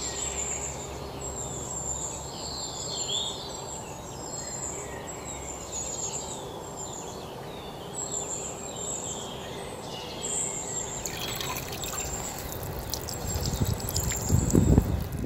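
Wild birds chirping with repeated short high calls over outdoor ambience. About eleven seconds in, water is poured and splashes into a puddle on muddy ground, loudest near the end.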